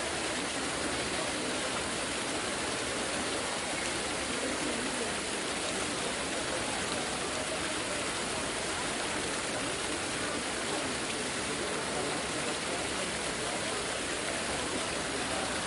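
Steady outdoor ambience of a distant crowd: a constant hiss-like murmur of many voices blending together, with no single sound standing out.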